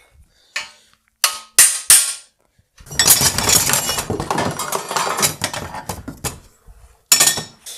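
Four sharp knocks in the first two seconds. Then about three and a half seconds of rattling and scraping as a steel crowbar is pulled off a wall rack of hooks and hangers. Two more sharp knocks come near the end.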